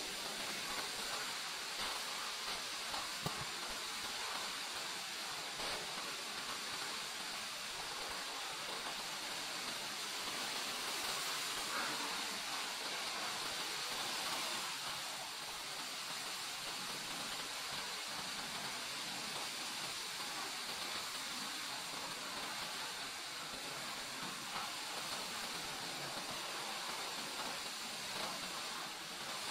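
Steady, even hissing of a spray on the car during washing, with no pauses and no motor tone.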